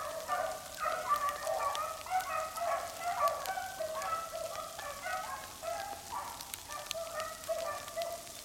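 A pack of beagles baying as they run a rabbit's track, several hounds giving tongue at once in overlapping calls. Frozen rain ticks on the brush and on a coat.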